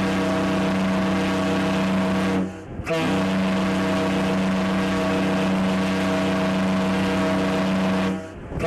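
Ship's horn of the liner MS Sagafjord sounding long, loud blasts of a deep, steady tone. The blast breaks off for a moment about two and a half seconds in, sounds again for about five seconds, and stops near the end.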